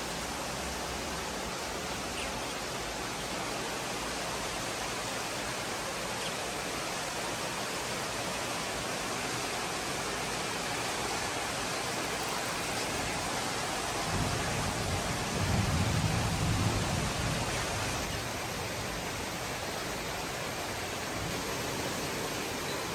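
Steady rain falling, an even hiss. A low rumble swells for a few seconds past the middle.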